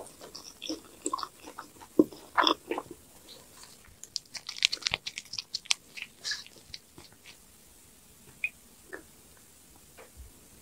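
Close-miked chewing and crunching with sharp wet clicks, then about four seconds in a dense flurry of crisp crackling clicks as marinated raw crab is handled with plastic-gloved hands over rice; the clicks thin out to a few faint ones near the end.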